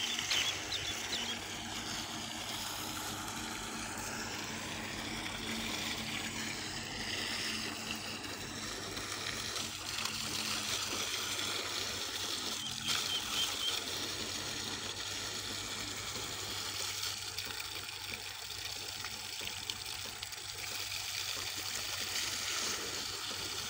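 Water gushing steadily from a tubewell pump's discharge pipe and splashing into a shallow channel, with a steady low hum underneath.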